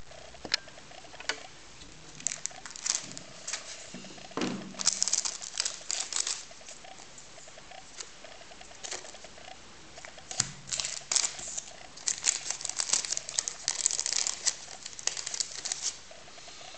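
Thin plastic screen-protector film and its packaging crinkling and crackling as they are handled and the backing is peeled off, in irregular bursts of sharp crackles with short pauses between.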